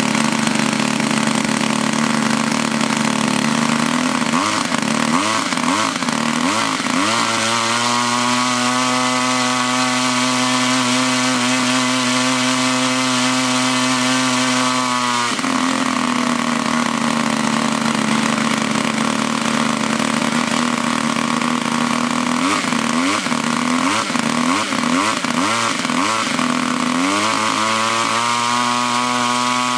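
DLA 56 single-cylinder two-stroke gasoline model-aircraft engine running on a test stand. It idles, is blipped up several times, then is held at high revs for about eight seconds before dropping suddenly back to idle. After several seconds of idling it is blipped again and run back up to high revs near the end.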